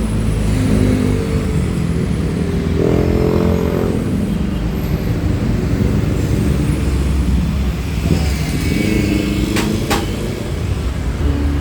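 Steady rumble of road traffic, with a motor vehicle engine passing about three seconds in and again near eight seconds. Two sharp clicks sound near the end.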